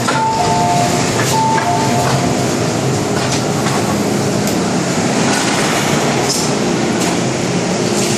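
MTR M-Train door chime, a high and a low tone sounding twice, as the saloon doors open at the platform. After it comes the steady noise of the train standing at the platform, with a few light clicks.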